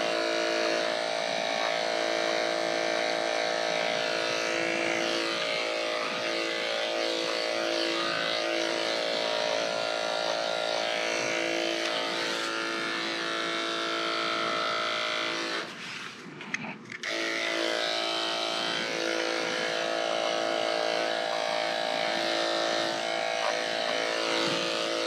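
Electric dog-grooming clippers with a #10 blade running with a steady hum as they shave a dog's leg. They stop for about a second partway through, then run again.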